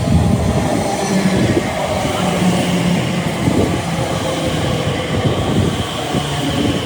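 Electric train running close by along the track, with a loud rumble and a few steady mechanical tones.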